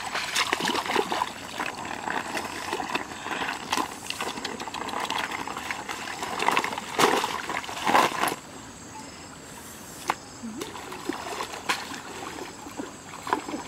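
Water splashing and sloshing as a wicker basket is swished and dunked in a shallow stream, loudest with two big splashes a little past the middle. After that it dies down to quieter dribbling with a few sharp single splashes.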